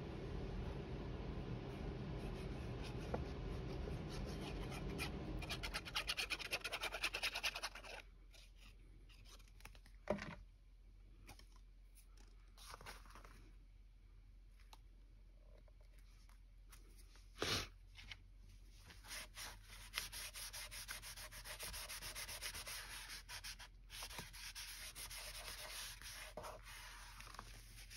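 Paper being rubbed and smoothed down by hand on a work surface. It goes quiet in the middle, with two sharp knocks, then the rubbing starts again.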